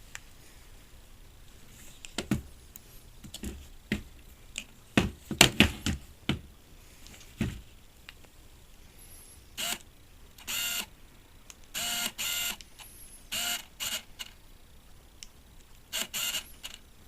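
Clicks and knocks of a Canon EF 35-80mm zoom lens being handled, then a series of short whirring bursts from a small electric motor, mostly in pairs, like the lens's autofocus motor driving back and forth.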